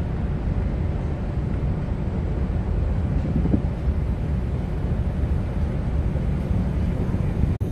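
Steady, loud low rumble on the open deck of the car ferry Armorique as it pulls away from the berth: the ship's engines under way mixed with wind on the microphone.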